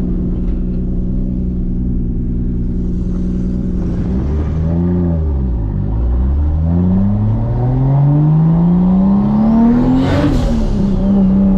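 Big-single-turbo, straight-piped Toyota Supra MKIV inline-six heard from inside the cabin: running steadily, dipping and rising around a gear change about halfway, then pulling hard with its pitch climbing and a turbo whistle rising over it. Near the end, as the revs peak and drop at the shift, there is a sharp rush of hiss, and then the engine settles to a steady cruise.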